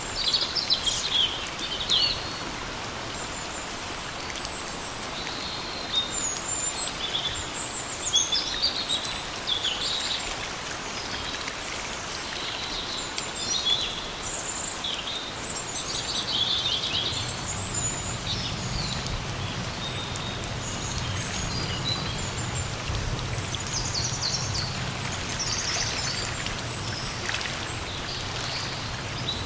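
Steady rain falling in a forest, with birds chirping repeatedly through it. A low steady rumble comes in about halfway.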